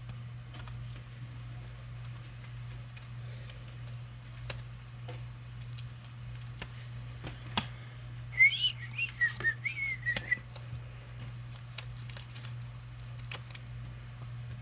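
Trading cards being handled and flipped through: scattered soft clicks and ticks over a steady low hum. About eight seconds in, a warbling high whistle lasts about two seconds.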